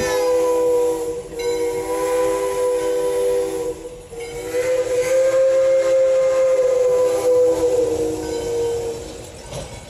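Steam locomotive No. 40's chime whistle blowing long blasts for a road crossing, several notes sounding together. One blast ends about a second in, a second lasts a couple of seconds, and a longer one from about the middle fades out near the end.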